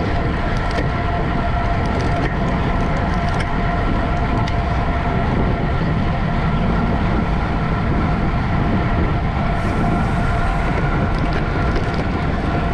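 Steady wind rush and low rumble on the microphone of a camera moving with a bicycle race, with a few faint steady whining tones.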